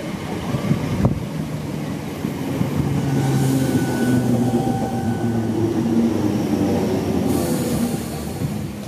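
Class 317 electric multiple unit running alongside the platform, with a few wheel clicks over the rails in the first second, then a steady humming drone of tones. Two short hisses come about three seconds in and again near the end.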